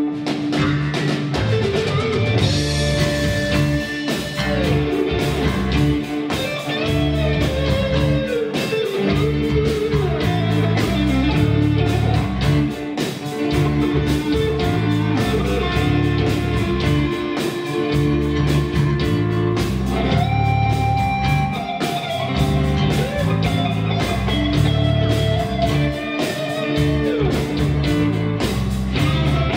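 Live rock band with electric guitars, bass guitar and drums playing an instrumental passage, with bending electric guitar melody lines over a steady drum beat and bass.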